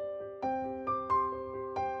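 Background music: a slow piano melody, with new notes struck about every half second.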